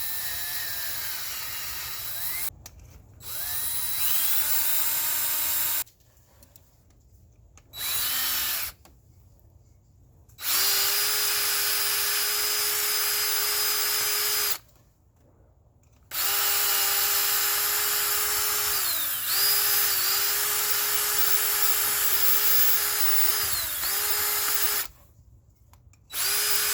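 Power drill running in about six separate runs, its motor whine spinning up and winding down each time, the longest run lasting some nine seconds with brief dips in pitch. It is drilling out stripped 6 mm intake manifold bolt holes in the engine to prepare them for Helicoil thread inserts.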